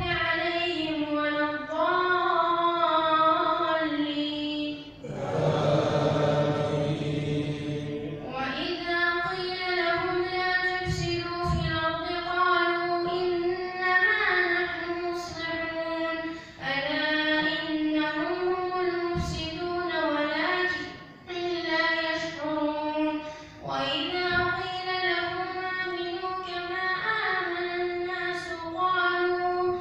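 A boy's voice reciting the Quran aloud in a melodic chant. He holds long, wavering notes phrase by phrase, with short breaks between them.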